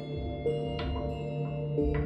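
Background music: slow struck notes that ring on over a held low note.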